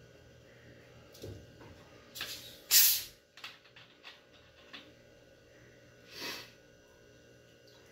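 Cap of a 2-litre plastic bottle of Pepsi being twisted open: the carbonated cola lets its gas out in short, sharp hisses, the loudest about three seconds in, then a few light clicks from the cap and another brief hiss near the end.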